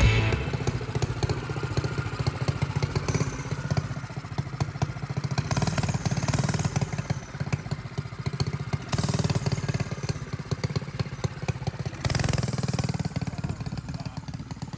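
Mini bike's Predator single-cylinder four-stroke engine running, its revs rising and falling in several louder swells.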